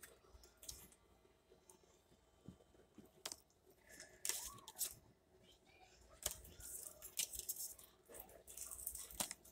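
Pokémon trading cards being handled and flipped through: faint rustling and light clicks in short bursts, sparse at first and busier in the second half.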